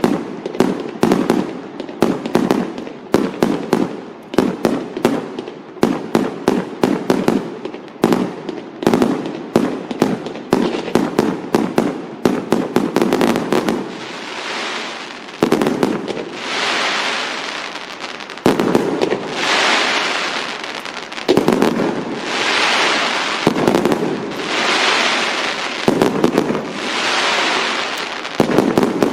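Fireworks going off: for about the first half, a rapid string of firecracker bangs, then a series of longer hissing, crackling bursts that swell and fade about every two seconds.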